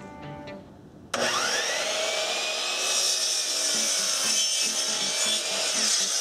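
Bosch miter saw's motor switched on about a second in, its whine rising quickly as the blade spins up, then running steadily while the blade cuts through a wooden board.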